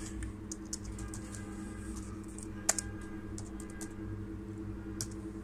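Computer keyboard being typed on in scattered keystrokes, with one sharper click a little after halfway, over a steady low hum.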